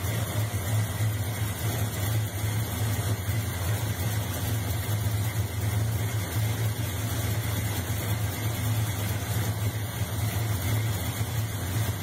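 Valiant Charger's small-block Mopar V8, a 360 taken out to 371 cubic inches with a 280-duration, .474-lift cam, idling steadily.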